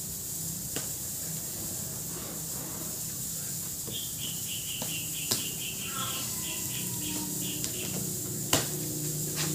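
A bird chirping in a quick run of repeated high notes, about six a second, over a steady low hum, with a few sharp knocks from the amplifier's box being handled and opened; the loudest knock comes near the end.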